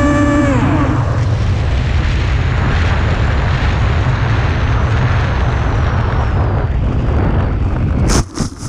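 An FPV drone's motors are heard through its onboard camera's mic. Their whine drops in pitch and fades about half a second in as the throttle is cut. Heavy wind rush with a low rumble follows, then near the end a few sharp knocks as the drone hits the grass, and the sound dies away.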